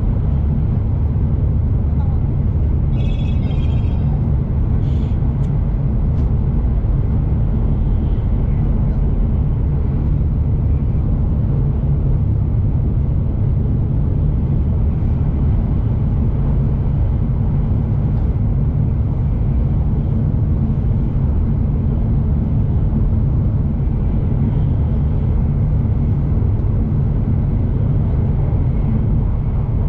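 Steady low rumble of a Shinkansen bullet train running at speed, heard from inside the passenger cabin. A few brief higher-pitched sounds come about three seconds in.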